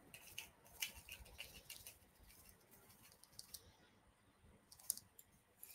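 Near silence, with faint light clicks and scrapes of a teaspoon measuring out salt, most in the first two seconds and a couple more near the end.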